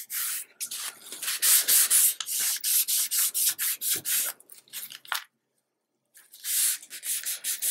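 Fingers and a crumpled tissue rubbing over a paper picture glued to a notebook cover, smoothing it down: quick papery strokes, about three a second. They pause briefly about five seconds in, then start again.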